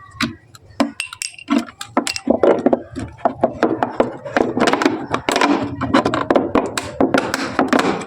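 Thin plastic bottle being handled and worked on, crackling and clicking. The dense crinkling grows louder about two seconds in.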